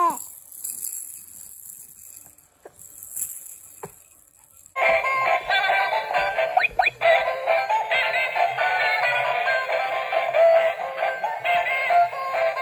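Light-up whale toy playing a thin electronic tune with a synthesized singing voice, starting suddenly about five seconds in. Before that there are only faint rustles and clicks.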